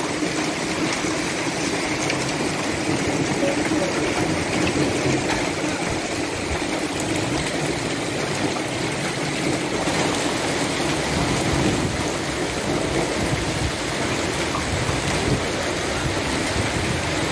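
Hail and heavy rain falling on paving stones and parked cars, a dense steady hiss.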